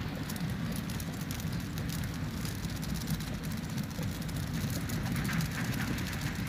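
Portable gas camping stove burning under a simmering pot of stew: a steady rush with fine crackling and bubbling over it.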